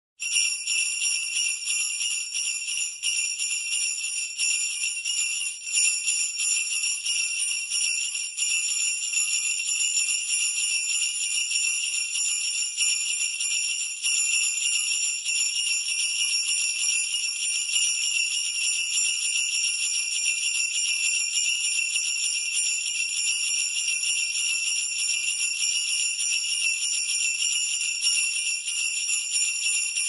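Sleigh bells shaken in a quick, steady rhythm, a continuous bright jingling.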